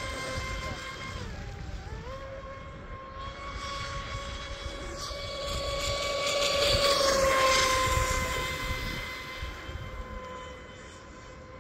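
Electric RC mono-hull speedboat's brushless motor whining steadily at speed. The pitch dips briefly about a second and a half in as the throttle eases, then the whine swells as the boat runs closer around the middle and fades again near the end.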